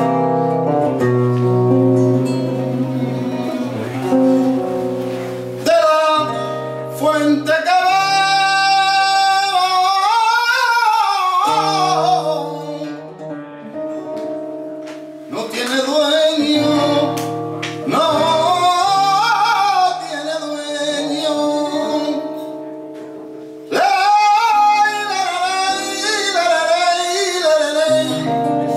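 Live flamenco ensemble playing a jazz standard arranged as a soleá: plucked guitars and bass hold low sustained notes under a lead melody that slides between pitches. The melody drops out briefly twice.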